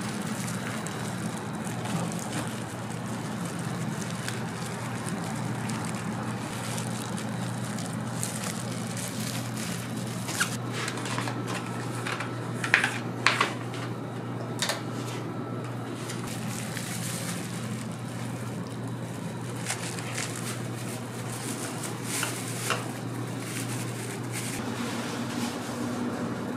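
Steady low hum of a street-food stall's surroundings, with a few sharp clicks and rustles of handling about halfway through and a few fainter ones later.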